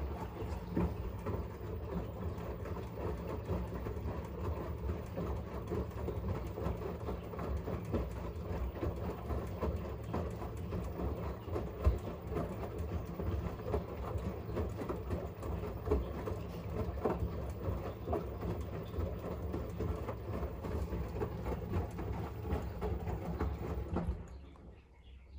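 LG 7 kg front-loading washing machine tumbling a load of wet laundry during its last rinse: water sloshing and clothes dropping in the drum, with small irregular knocks over a steady low motor hum. The drum stops about 24 seconds in.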